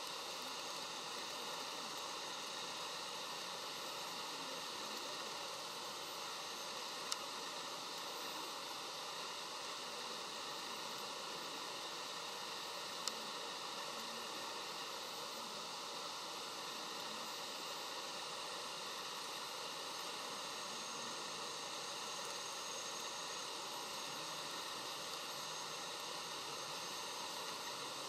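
Steady, even hiss, with two sharp clicks about seven seconds in and again about six seconds later.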